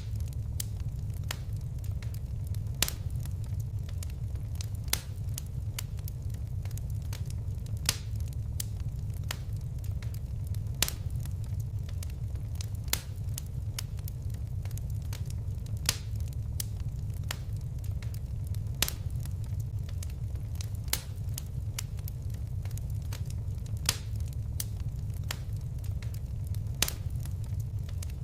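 Fire crackling, with a steady low rumble under frequent small clicks and a louder, sharper pop every few seconds.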